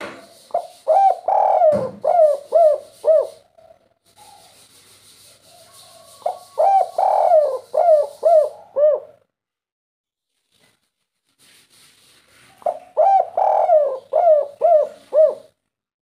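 Spotted dove (derkuku) cooing its 'kuk 3' song: three phrases of about six or seven quick, low coos each, roughly six seconds apart.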